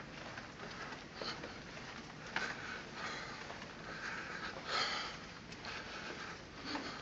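A person walking down a carpeted corridor while holding a phone: soft, irregular scuffing and rustling of steps and clothing, with a few light clicks and a louder scuff about five seconds in.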